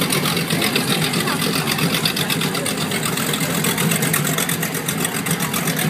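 Several offshore performance powerboats' engines idling together at the dock, a steady low drone with no revving.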